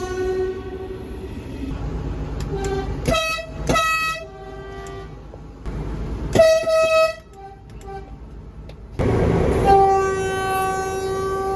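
Train horns sounding in a series of separate blasts. A held horn fades out at the start, two short sharp toots come about three seconds in, and a louder, higher blast follows around six seconds. Near the end a long steady lower horn note begins.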